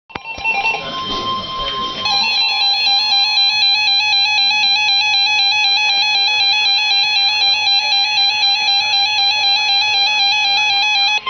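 Emergency Alert System two-tone attention signal: a loud, harsh, steady electronic alarm tone that starts about two seconds in and holds without a break, after a brief stretch of mixed tones.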